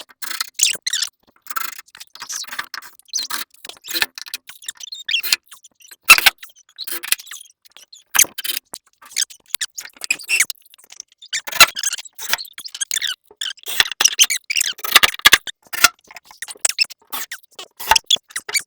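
Irregular clicks, scrapes and squeaks with small metallic rattles of screws and latch hardware being handled while working on a wooden frame.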